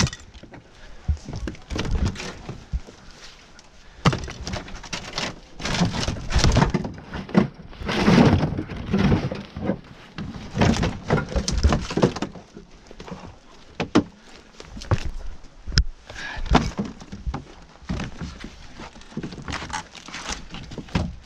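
Irregular cracking, crunching and thuds of an RV trailer's roof and wall panels being pulled apart and broken up by hand.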